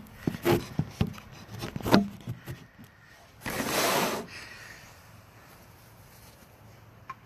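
Phone microphone handling noise: several sharp taps and knocks in the first two seconds, then about a second of rustling as the white fabric of a beekeeping jacket rubs against the phone.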